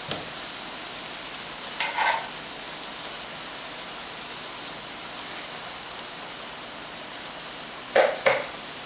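Ground beef, corn and pepper filling sizzling steadily in a skillet over a gas flame. There is a brief sound about two seconds in and two short, sharp, louder sounds near the end.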